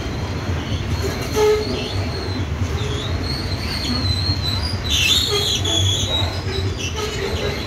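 Rumo freight train's covered hopper wagons rolling past close by: a steady low rumble of wheels on rail, with a wavering high-pitched wheel squeal that flares loudest about five seconds in, and a few brief knocks.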